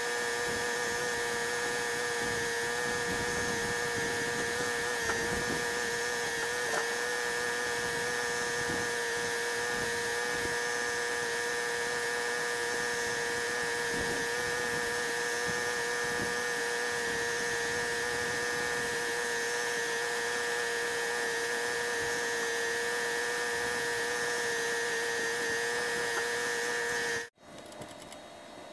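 Electric power tool motor running without a break at one steady speed, a constant whine that cuts off suddenly near the end.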